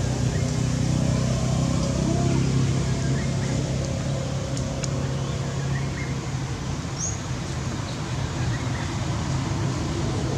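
A steady low engine hum, with a few faint short high chirps over it.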